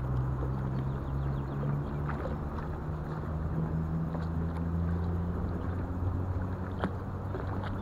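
Steady low hum of a distant motor, a few level tones drifting slightly in pitch, over a rushing haze, with a couple of faint clicks.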